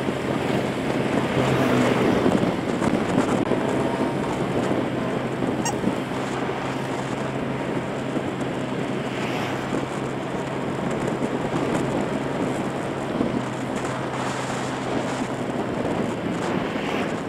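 Wind rushing over the microphone of a moving motorbike, with the bike's engine running steadily as a low hum underneath.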